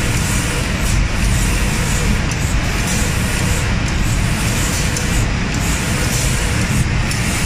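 Automatic cabinet-door spray-painting line running: a steady, loud rush of air and machine noise.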